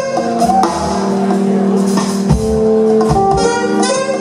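Live jazz-fusion band playing: held chords over bass, punctuated by drum hits.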